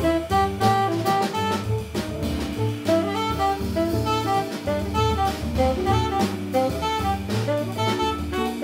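Small jazz combo playing: a tenor saxophone solos a running melodic line over drum kit and upright bass accompaniment.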